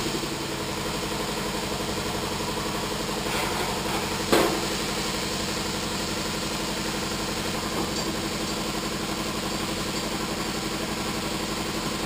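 A steady, pulsing mechanical drone, like an engine idling, with one sharp knock about four seconds in.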